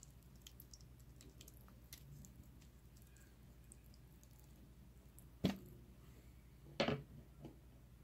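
Quiet room tone with a few faint clicks, then two sharp knocks about a second and a half apart, the second a little longer, as things are handled around the bowl.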